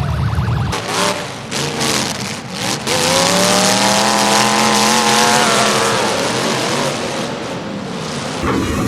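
Demolition derby cars: a few sharp bangs of impacts about a second in, then a car's engine revving hard and held high for about three seconds with tire noise before it fades.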